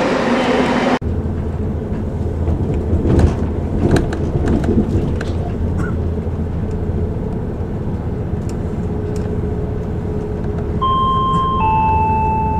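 After about a second of station sound the audio cuts abruptly to the inside of a moving passenger train: a steady low drone with a few sharp clicks and knocks. Near the end a two-note descending chime sounds from the train's public address system, the signal that an on-board announcement follows.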